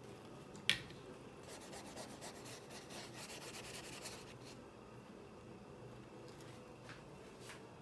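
Faint dry rubbing and scratching on textured watercolour paper, with a sharp tap a little under a second in and two soft ticks near the end.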